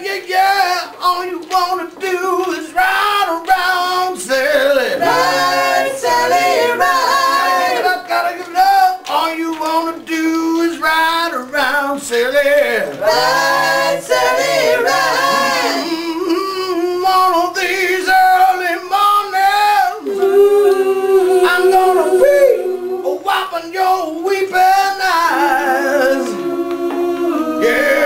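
A group of men and women singing together a cappella, with long held notes in the second half.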